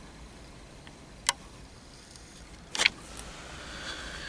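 Handling noise from a camcorder being moved and turned around: a sharp click about a second in, then a louder cluster of clicks near three seconds, over a steady low hiss.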